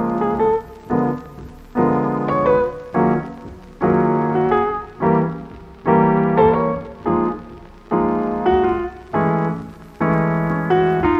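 Background piano music: chords struck about twice a second, each ringing and fading.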